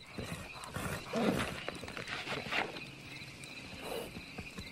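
A horse with a bullet wound lying on the ground, groaning and breathing heavily in pain, loudest about a second in.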